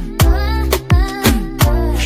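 Background music with a steady beat: deep kick drums that slide down in pitch about three times a second, sharp snare-like hits and a sung melody, in an R&B or Afrobeat style.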